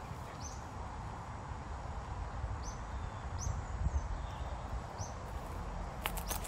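Outdoor ambience: a small bird gives short high chirps every second or two over a steady low rumble. A few sharp clicks come close together near the end.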